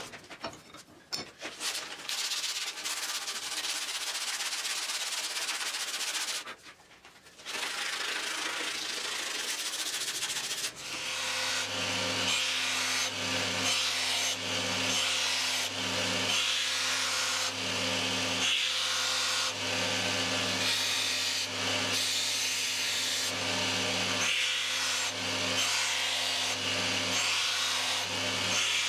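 Hands rubbing and sanding a wooden axe handle. Then, about eleven seconds in, a belt grinder runs steadily with a low motor hum and the hiss of a forged steel axe head being ground against the belt. The sound swells and eases about every two seconds as the head is worked.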